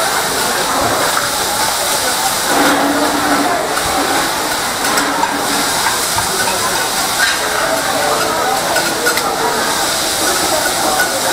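Food sizzling steadily on a steel teppanyaki griddle while the chef turns it with metal spatulas, with a few light clicks of spatula on steel.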